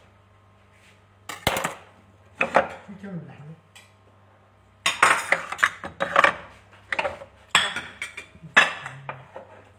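Kitchen utensils and cookware clattering on a countertop: a few separate metal knocks and clinks, then a quicker run of them over the second half.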